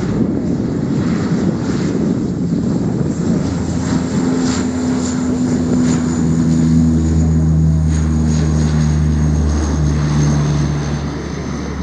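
Dash 8 Q300's twin Pratt & Whitney Canada PW123 turboprops at takeoff power through the takeoff roll and lift-off. A deep propeller drone with steady hum tones builds over the first few seconds, and a high turbine whine slowly falls in pitch as the aircraft passes. It is loudest around the middle and eases a little near the end.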